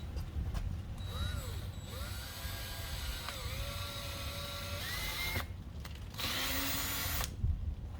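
Power drill run at a slow, varying trigger speed, its motor whine rising and falling in pitch, then a louder burst of about a second as it bores a pilot hole through plastic fender flare.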